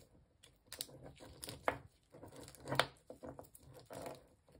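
Raw crab being pulled apart by gloved hands: irregular crackling and tearing as shell, gills and flesh are broken away, with a couple of louder snaps midway.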